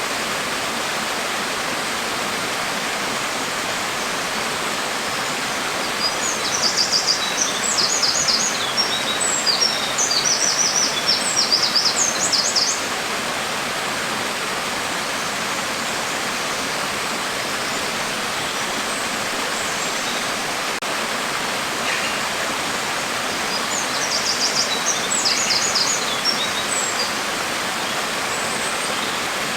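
Steady hiss of falling rain. A small bird sings rapid high chirps over it twice, for several seconds from about six seconds in and again briefly near twenty-four seconds in.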